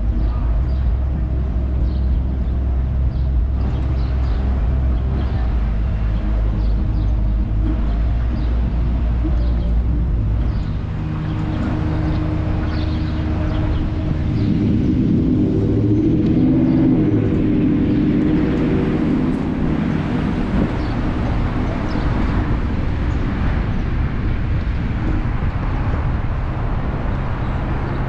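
Traffic and vehicle noise heard from a car: a low steady engine rumble while it waits at a red light, then the car pulls away and drives on with engine and road noise.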